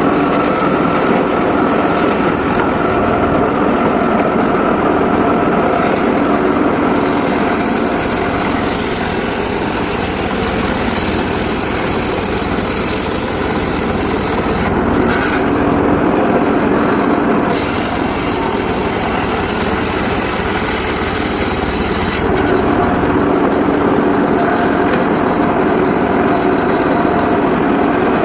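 Homemade circular saw running steadily, its blade cutting through sengon laut wood. A high hiss from the cut comes in about seven seconds in, drops out briefly twice, and stops about twenty-two seconds in, while the saw's drive keeps humming underneath.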